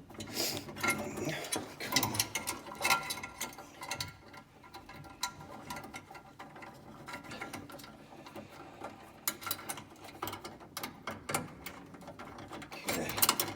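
Metal clicking and rattling as the lock ring of a flexible metal conduit connector is tightened down onto a metal electrical box, with irregular clicks, busiest at the start and again toward the end.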